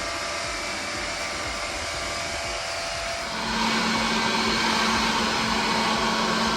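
An electric motor-driven cleaning machine runs steadily with a rushing hiss. About three seconds in it grows louder and a steady hum joins in.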